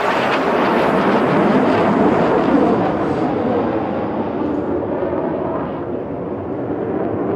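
Jet noise from a BAE Hawk jet trainer's turbofan passing over the display line. It is loudest about two seconds in, then dulls as the higher part of the sound fades and the jet draws away.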